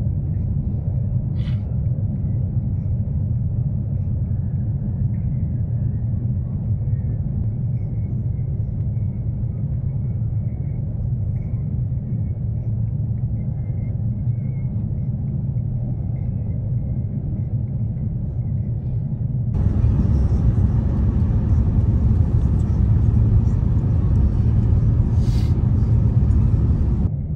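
Steady low cabin rumble inside an Airbus A350-900 airliner. About 20 seconds in it jumps to a louder, brighter rumble, then drops back near the end.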